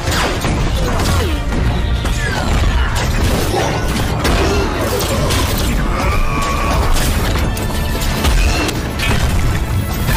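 Action-film soundtrack for an animated Hulkbuster armour fight: music under mechanical armour sound effects, with repeated crashes and impacts.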